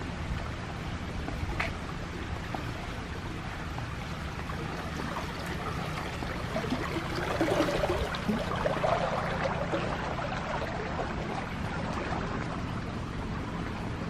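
Fast water rushing and splashing along a narrow concrete irrigation channel, a steady wash that grows louder and more splashy for a few seconds around the middle.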